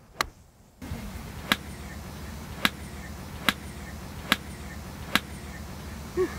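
An iron striking golf balls: six sharp clicks about a second apart, over a steady low hum that starts about a second in. The shots are topped, the club catching the top of the ball.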